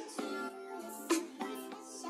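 Background music: a song with a sung or rapped vocal line over sharp, regular beats.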